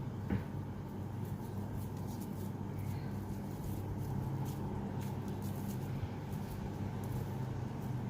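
Faint soft handling noises of cookie dough being gathered and shaped by hand, with a light click about a third of a second in, over a steady low hum.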